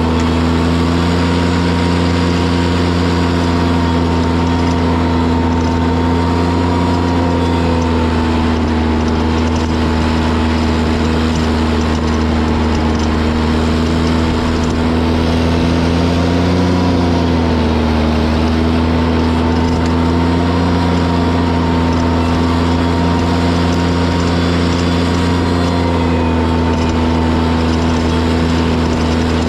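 Heavy equipment engine running steadily at high revs, with a strong low hum; its pitch sags briefly under load a little past the middle, then recovers.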